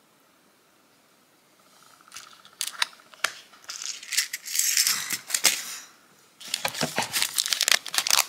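Small nail charms rattling inside a clear plastic compartment case as it is handled, with a few sharp clicks, starting after about two seconds of quiet. Near the end a cellophane packet crinkles.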